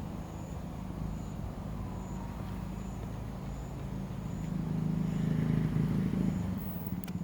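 A steady low motor hum that grows louder about five seconds in, with faint high pips repeating a little more than once a second.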